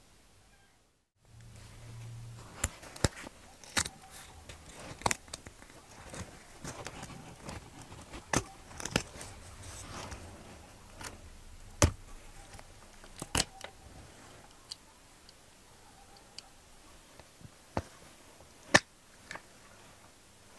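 Small wooden mold frame being handled and prised apart by hand, its pieces coming away from the set red mold. Irregular sharp clicks and knocks of wood with light rustling start about a second in.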